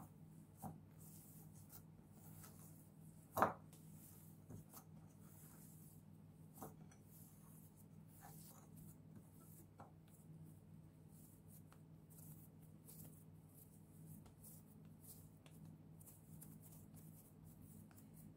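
Hands kneading a soft potato dough in a ceramic bowl: faint squishing and rubbing, broken by a few light knocks, the loudest about three and a half seconds in, over a steady low hum.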